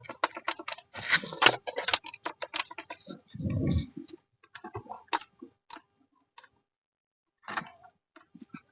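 Plastic car console trim being pried loose and lifted: a run of sharp clicks, snaps and crackles from the retaining clips and panel, with a dull thump about three and a half seconds in, then a few scattered clicks.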